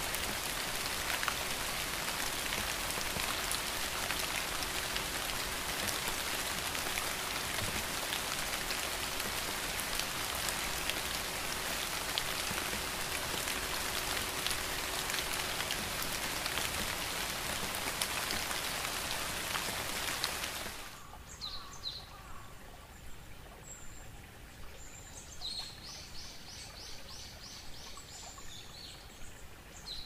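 Steady rain, an even hiss, for about twenty seconds; then it cuts off abruptly, leaving a much quieter background with a few high chirps and a short trill.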